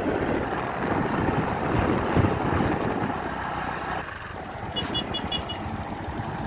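Motorcycle riding at speed: steady wind rush over the microphone mixed with the bike's engine and tyre noise, easing a little partway through. Four short, faint high beeps sound about five seconds in.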